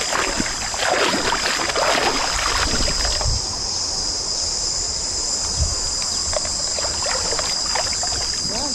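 Stream water sloshing and splashing around legs wading through it, busiest in the first three seconds and calmer after. Insects buzz steadily at a high pitch throughout.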